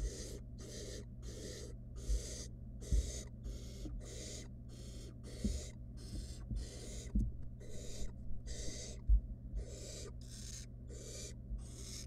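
Barn owl nestlings giving their rhythmic hissing 'snore' begging calls, about two a second without a break. A few dull thumps sound in among them, the loudest about nine seconds in.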